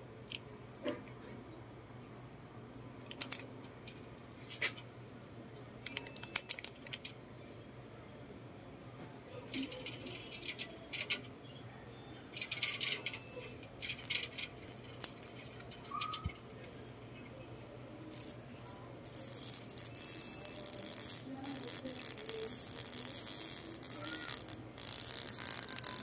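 Electric mosquito zapper's charged mesh snapping and crackling as a cockroach on the grid bridges the wires and is shocked. A few separate sharp snaps at first, then longer stretches of fast crackling that grow denser toward the end.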